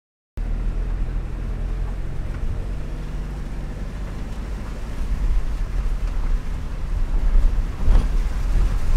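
Vehicle cabin noise while driving slowly on a mud-covered road: a steady low engine and tyre rumble, with a short knock near the end.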